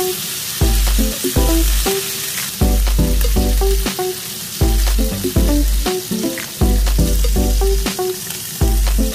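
Striploin steak sizzling steadily as it sears in hot fat in a frying pan, with the fat being spooned over it, under background music with a repeating deep bass note and plucked notes.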